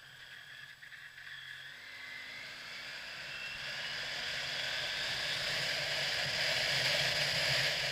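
Motorcycle riding away and gathering speed, with a faint engine note rising in pitch under wind rushing over the microphone. It grows steadily louder throughout.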